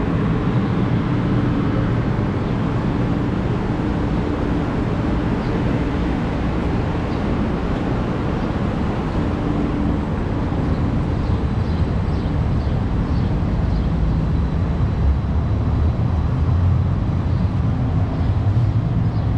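City street traffic: a steady low rumble of passing vehicles, swelling a little in the second half.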